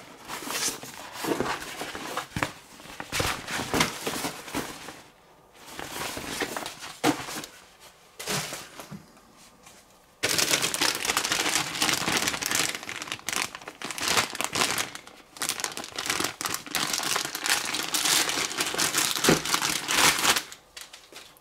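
Plastic packaging crinkling and rustling as it is handled and unwrapped: at first in short bursts with pauses, then dense and continuous from about halfway until just before the end.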